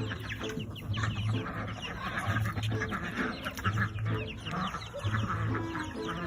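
Chickens clucking and chirping, many short calls overlapping without a break.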